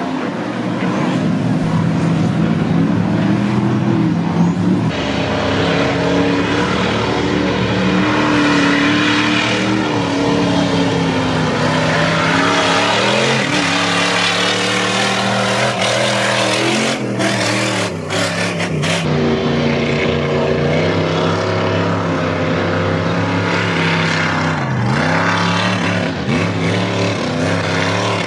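Lifted mud trucks' engines revving hard under load, their pitch climbing and falling as the drivers work the throttle through deep mud. A quick run of sharp cracks comes about two-thirds of the way through.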